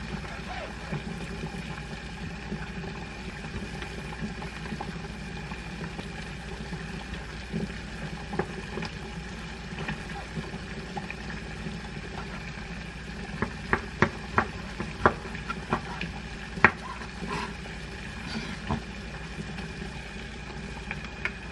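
Kitchen knife slicing a raw salmon fillet on a wooden cutting board: soft scattered cuts, then a quick run of sharp knife taps on the board about thirteen seconds in. A steady hum underneath.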